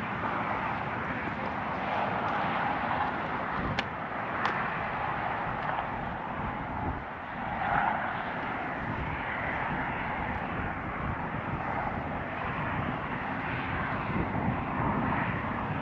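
Wind buffeting the camera microphone: a steady, gusty rushing noise. Two light clicks come about four seconds in.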